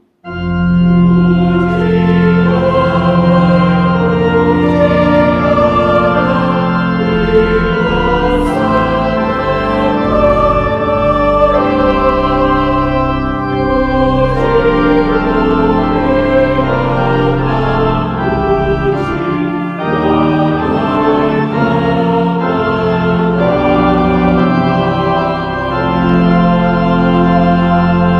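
A hymn played on organ in slow, sustained chords, with a choir singing along.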